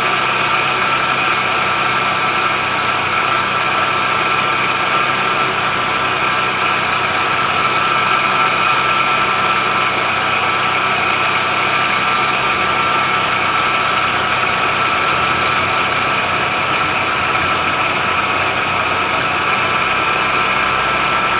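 Car engine idling steadily, with a growl that comes from a worn accessory-belt pulley bearing.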